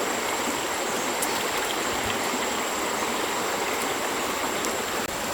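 Stream water flowing and rushing in a steady, even wash, with a thin, steady high whine above it.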